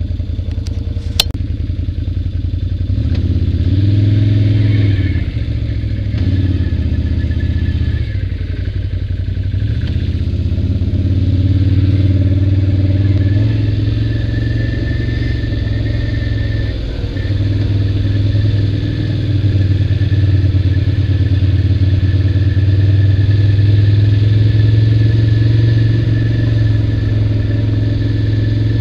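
ATV engine running under way on a dirt trail, its pitch rising and falling as the throttle is opened and eased off, with a brief drop about two-thirds of the way through. A single sharp click about a second in.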